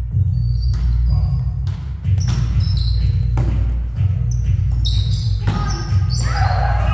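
Indoor volleyball play in a gym: the ball being struck and bouncing, giving sharp knocks every second or so, with short high sneaker squeaks on the court floor over a steady low rumble. Players' voices call out near the end.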